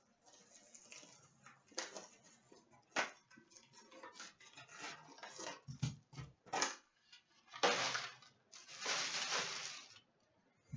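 Foil trading-card pack wrappers crinkling and tearing as packs are opened by hand, with scattered light clicks and taps of packs set down on a glass counter. Two longer crinkling rips come near the end.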